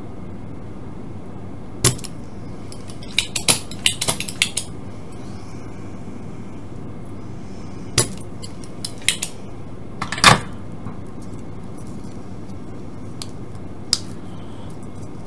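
Sharp clicks and clacks of a spring-loaded desoldering pump and soldering iron worked against a small circuit board while a tuning capacitor is desoldered, over a steady low hum. A quick run of clicks comes about three to four and a half seconds in, and the loudest snap about ten seconds in.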